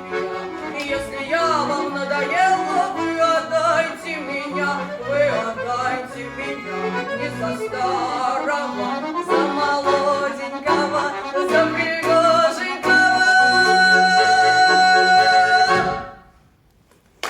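Accordion playing the instrumental close of a Russian folk song: a melody over an alternating bass, ending on a long held chord that stops suddenly a little before the end.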